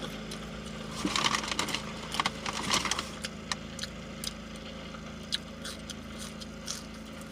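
Close-up chewing and lip smacking on a spicy fried chicken sandwich: a run of wet clicks and crunches in the first few seconds, then scattered single smacks, over a steady low hum.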